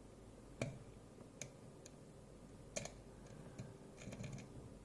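Faint, irregular light clicks and ticks of a dimple pick working the pins of a DOM ix10KG dimple lock under tension, the sharpest about halfway through and a short run of small clicks near the end.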